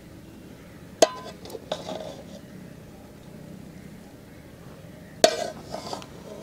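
Metal serving spoon clinking and scraping against a metal pot and steel platter while rice is scooped out and served. Two sharp, ringing clinks, about a second in and again near the end, each followed by a few lighter taps.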